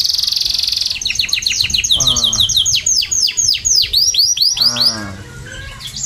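Domestic canary singing: a fast buzzy trill, then a long run of quick high whistled notes, each falling in pitch, that spread out and stop about five seconds in.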